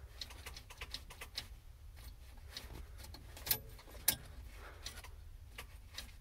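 Faint, irregular clicking from the starter of a Hino EM100 inline-six diesel with the key held at start, with two louder clicks a little past halfway. The Bendix drive is engaging but the starter does not turn the engine over, short of power on a single 12-volt battery.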